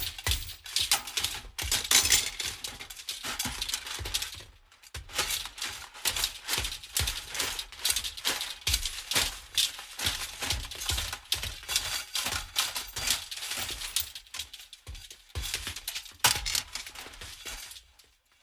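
Metal pieces rattling rhythmically: a dense run of sharp clinks and clatters, with a brief pause about four and a half seconds in.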